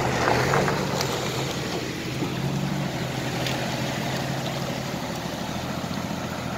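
Heavy diesel truck engine running steadily, a low even drone.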